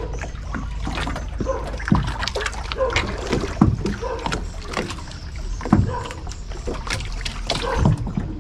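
Knocks and thumps on a fibreglass boat's hull, scattered irregularly, with water splashing and sloshing against it.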